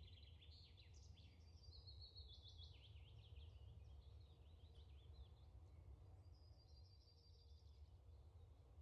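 Near silence: a faint low hum under faint high, rapid birdsong chirps, busiest in the first few seconds and returning briefly near the end.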